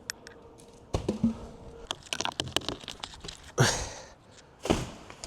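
Scattered clicks and knocks of a tree climber's gear and handling, with a louder knock about a second in and two loud noisy rushes about three and a half and four and a half seconds in.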